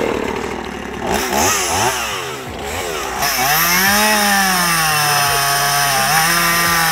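Gas chainsaw revved up and down several times, then held at high speed as it cuts into a dead orange-tree limb. The engine note sags a little under load and then holds steady.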